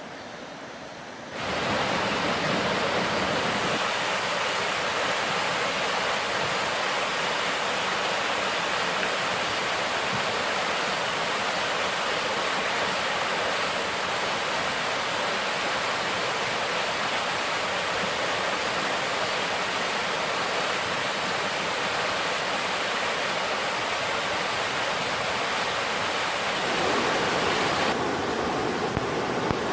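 Mountain stream water rushing over rocks: a steady, strong rush that jumps louder about a second and a half in and changes tone near the end.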